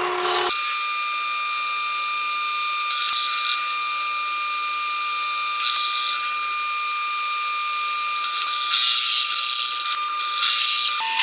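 Drill press running with a steady high whine while its bit cuts holes through a knife blank; a harsher cutting hiss comes and goes near the end.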